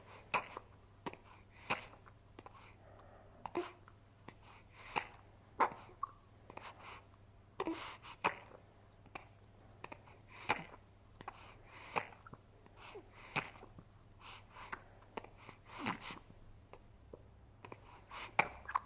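Infant feeding on milk: irregular sucking clicks, smacks and small gulps, one or two a second, with an occasional brief grunt.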